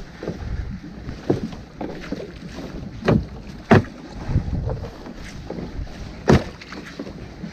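Wind buffeting the microphone and water moving around a small fishing boat at sea, with four or five sharp knocks and clunks on the boat while a crab net is hauled in, the loudest a little past the middle and near the end.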